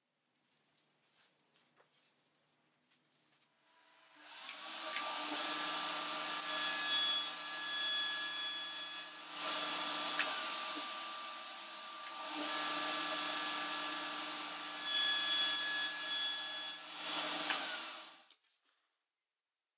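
Table saw motor starting about four seconds in and running with a steady whine, louder twice as the blade cuts through a thin clear plastic sheet, then stopping near the end. A few faint handling clicks come before it starts.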